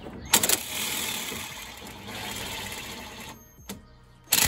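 Air ratchet running for about three seconds, turning the forcing bolt of a pitman arm puller to push the pitman arm off the steering gearbox shaft. A loud, short burst of noise comes near the end.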